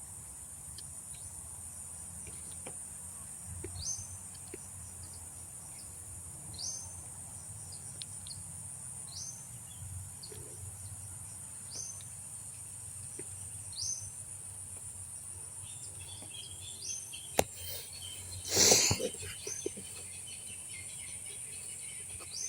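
Wild birds calling over a steady high drone of insects: one bird repeats a short rising whistled note about every three seconds, with other chirps later. About three-quarters of the way through, a brief loud scuffing noise stands out.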